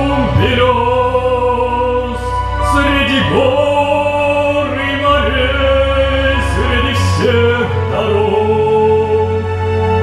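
A man singing a slow, lyrical Russian song with vibrato on long held notes, over an instrumental accompaniment with steady bass notes.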